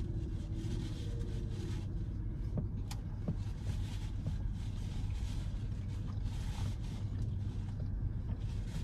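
Steady low hum of a car idling, heard from inside the cabin, with a few faint clicks of chewing.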